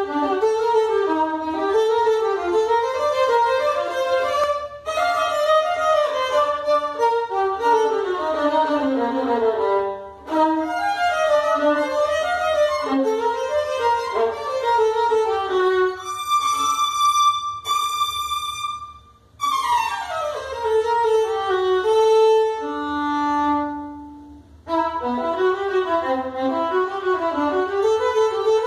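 Solo violin, bowed, playing a lively tune in quick runs of notes with brief breaks between phrases. It has a few long high held notes and a falling slide about two-thirds of the way through, over a steady low hum from the phone microphone.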